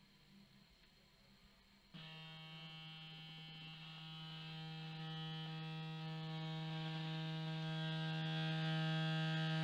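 A loudspeaker under a plate of soapy water starts playing a low steady tone about two seconds in. The tone is buzzy with many overtones and grows gradually louder. It sets the water surface vibrating, which keeps water drops bouncing on it instead of merging.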